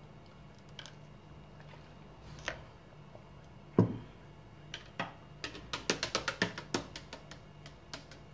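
A glass tumbler set down with a knock on a plastic placemat, then a metal straw clinking rapidly against the glass as a thick blended drink is stirred, a quick run of clinks lasting about two seconds.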